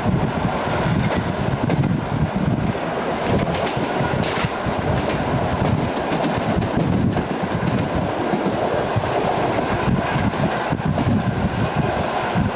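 EN57 electric multiple unit under way, heard from on board: steady rolling and rumbling of the wheels on the rails, with a few sharper clicks from rail joints and points.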